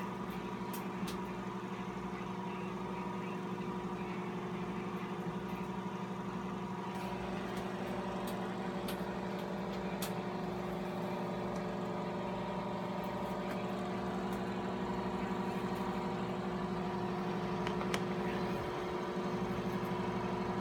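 Microwave oven running, a steady electrical hum with a few faint clicks.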